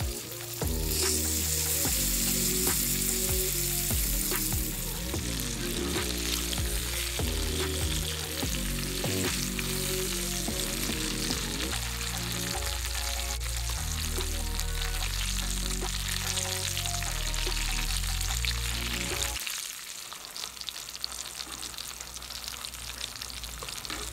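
Seared chicken breasts sizzling in garlic butter in a frying pan, a steady crackle with scattered pops. Background music plays under it and drops out about three-quarters of the way through, leaving the sizzle on its own.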